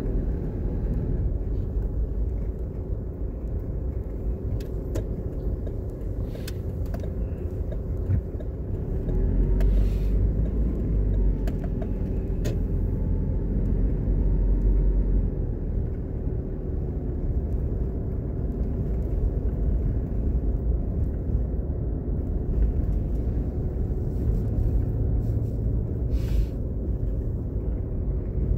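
Steady rumble of a car driving, engine and tyre noise heard from inside the cabin, with a few brief clicks.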